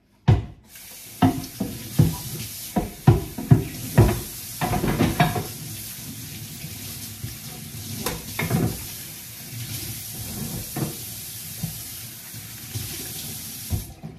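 Kitchen tap running into a stainless steel sink during washing-up, with knocks and clatter of items handled in the sink, busiest in the first five seconds. The water shuts off just before the end.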